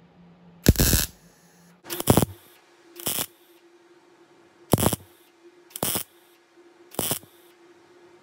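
MIG welder stitch-welding a patch seam on the steel body panel of a 1969 Plymouth Road Runner: six short bursts of welding, each under half a second, about a second or so apart.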